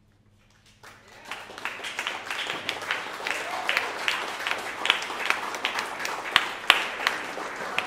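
Audience applauding: clapping breaks out suddenly about a second in and carries on steadily, with a few louder single claps standing out.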